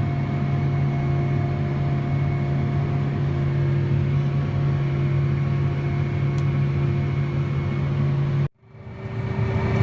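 John Deere 8320R tractor pulling a KMC peanut combine, running at a steady working speed with an even drone and hum. The sound cuts out abruptly about eight and a half seconds in and fades back up to a similar machine drone.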